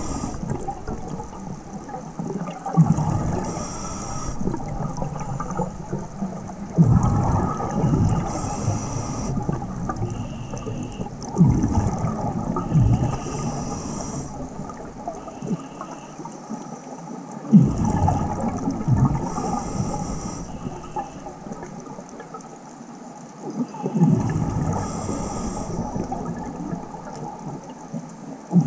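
Scuba diver breathing through a regulator underwater: a hiss on each inhale, then a rush of exhaled bubbles, in a regular cycle about every five to six seconds.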